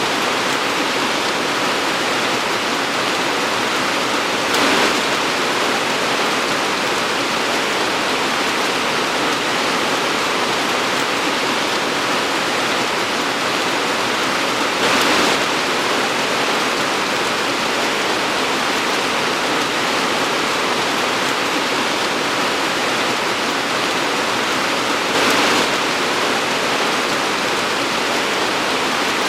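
Torrential rain pouring steadily in a dense, even downpour. It swells briefly louder three times, about ten seconds apart.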